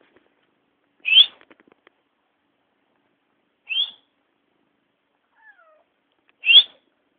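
A cat giving three short, high-pitched meows spaced about two and a half seconds apart. A faint, brief falling squeak comes between the second and third.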